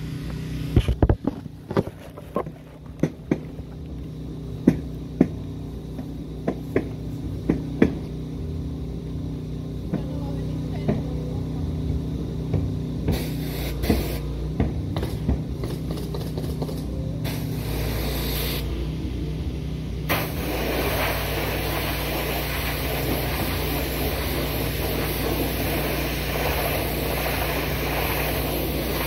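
Pressure washer running with a steady low hum, a string of sharp knocks and clicks in roughly the first twelve seconds, then from about twenty seconds in a steady hiss of high-pressure water spraying onto wooden deck boards.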